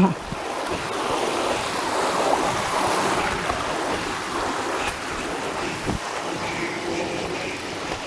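Shallow creek water rushing steadily over a rocky streambed.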